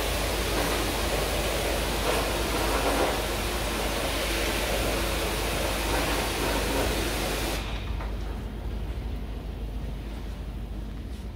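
High-pressure water spray hissing onto an air conditioner's parts during cleaning, cutting off suddenly about two-thirds of the way in, leaving a quieter low hum.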